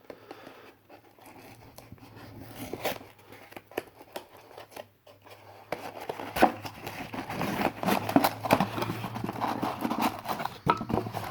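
Cardboard box and packaging being opened by hand: scattered clicks, tearing and crinkling, sparse at first and busier from about halfway through.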